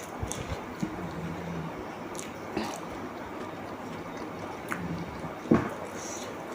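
Close-up mouth sounds of eating: chewing and biting, with scattered small clicks and one louder thump about five and a half seconds in.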